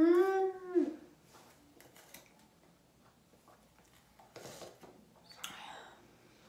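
A girl's drawn-out wordless cry, rising then falling in pitch, for about a second at the start. Then two faint rasps of a wide-tooth comb being pulled through thick hair, about four and five seconds in.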